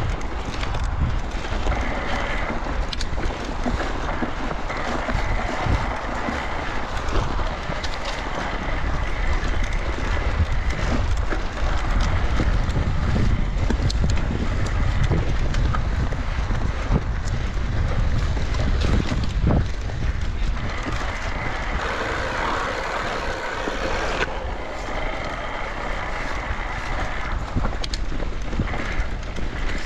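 Electric mountain bike being ridden over a trail, heard from a chest-mounted camera: steady tyre rumble and wind on the microphone, with the frame and parts knocking over bumps. A thin high whine comes and goes several times.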